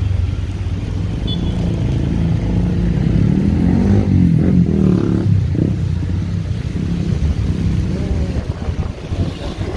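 Motor vehicle engine running with a steady low rumble of road and wind noise. About four to five seconds in, an engine note swells and shifts in pitch, the loudest part, then settles back.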